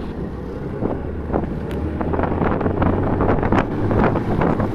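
Snowmobile running steadily at cruising speed, its engine a low hum under a rough rush of wind on the microphone, with short knocks and rattles from the ride.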